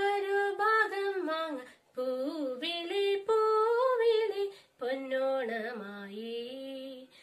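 A woman singing a Malayalam Onam song unaccompanied, in three phrases with short breaths between, her pitch sliding through ornamented turns.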